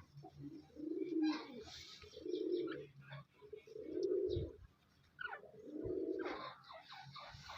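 Birds calling: a low, rounded coo repeated four times about every one and a half to two seconds, with short higher chirps between the coos.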